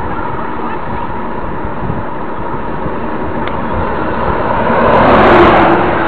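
Wind buffeting the microphone of a camera carried on a moving bicycle, a steady rumble throughout. A motor vehicle grows louder and passes close by, loudest about five seconds in.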